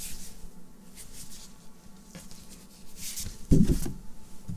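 Cardboard LP record jacket being handled and turned over, brushing in a few short rustles, with a low thump about three and a half seconds in.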